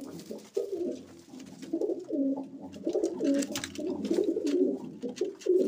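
Domestic pigeons cooing in a continuous low, warbling run that grows louder about two seconds in.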